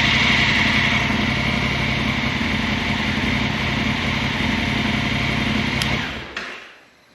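2019 Honda Africa Twin's parallel-twin engine idling steadily just after starting, then shut off about six seconds in, running down quickly to silence.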